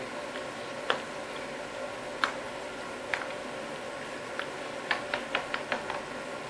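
Spoon clicking and knocking against a bowl while stirring aubergine flesh and bolognese sauce together: scattered sharp clicks, then a quick run of them about five seconds in, over a steady background hum.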